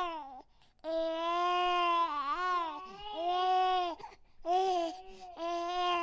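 Baby crying: a string of high wails, each about half a second to two seconds long, with short breaks for breath between them.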